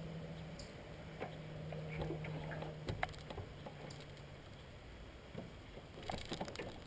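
Light water sounds and scattered knocks and taps on an aluminium jon boat as a caught muskie is let go over the side and the angler gets up, over a faint steady low hum that stops about four seconds in.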